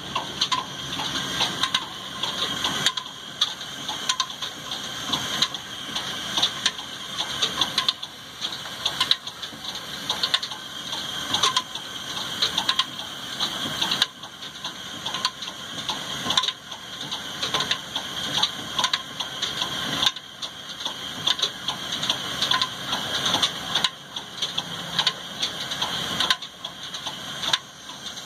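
Engine-driven stone flour mill (chakki) running and grinding grain: a steady hiss with continual irregular rattling and clicking.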